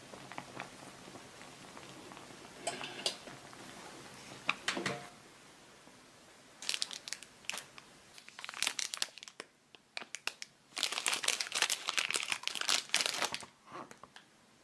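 A plastic fish-cake wrapper being crinkled and torn open in bursts, densest and loudest near the end. Before that, a pot of boiling water hisses faintly, with a couple of knocks.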